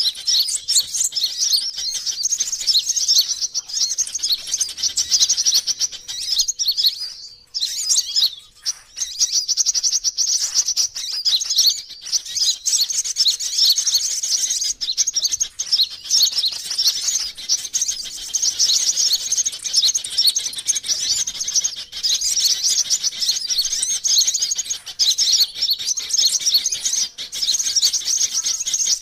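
Sunbird lure call: a continuous stream of rapid, high-pitched chirps and trills, broken briefly about seven to nine seconds in. It is a looped recording played to draw wild sunbirds in.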